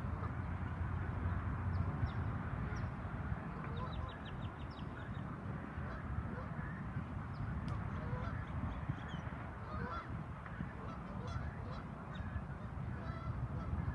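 A large flock of geese honking, many calls overlapping into a continuous din, with short higher-pitched calls mixed in.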